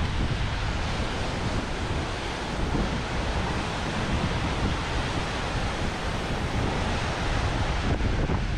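Steady rushing of a mountain river cascading over granite slabs and boulders, mixed with wind rumbling on the microphone.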